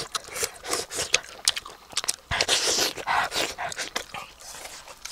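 Close-up eating sounds of people sucking and chewing cooked fish off the bone: quick wet lip-smacks, sucking and chewing clicks in an uneven run, busiest around the middle.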